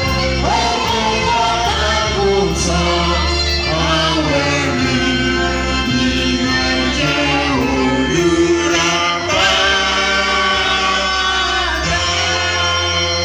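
Church choir singing a gospel song, with a man's voice singing into a microphone over held keyboard chords.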